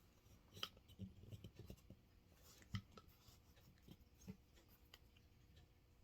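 Faint rubbing and a few light clicks as a cloth cleaning patch on a jag is worked into a revolver cylinder chamber.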